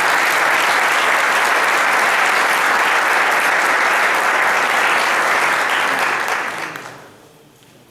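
Audience applauding in an auditorium, steady clapping that dies away near the end.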